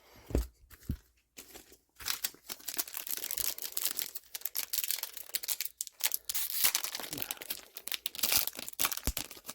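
Foil trading-card booster pack wrappers being torn open and crinkled by hand, a steady crackle with a few short breaks, after a couple of soft knocks at the start.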